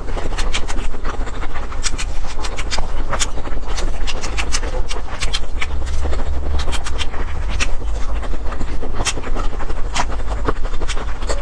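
Close-miked eating: chewing with many irregular crisp clicks and crunches, over a constant low rumble.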